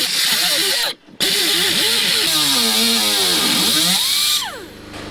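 Handheld cut-off grinder cutting through the sheet-metal fender lip, its pitch wavering as it bites into the metal. It cuts out briefly about a second in, runs on, then is released near the end and winds down with a falling whine.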